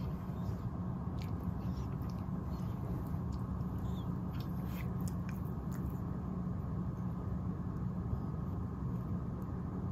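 A cat biting and pawing at a fluffy wand toy, making faint scattered rustles and clicks, mostly in the first half, over a steady low hum.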